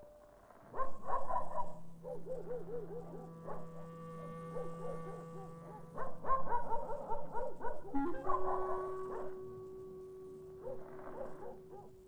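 Eerie film score of long held notes, with dogs barking and yelping over it in bursts about a second in and again from about six to nine seconds.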